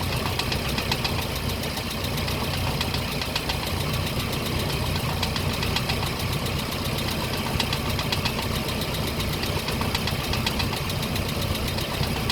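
Land Rover Series 3 engine running with a loud, fast, steady rattle over the engine's drone, a terrible rattling noise from worn camshaft roller followers.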